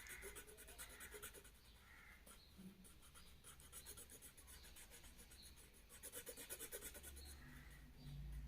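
Faint scratching of a pencil on paper in quick repeated strokes as birds in a drawing are gone over and shaded.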